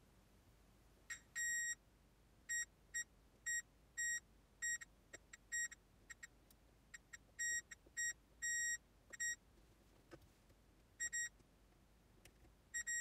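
Multimeter continuity tester beeping as its probes touch the pins of a chip on a circuit board: a dozen or more steady high-pitched beeps, some short and some held longer, at an irregular pace, each sounding while the probes make an electrical connection.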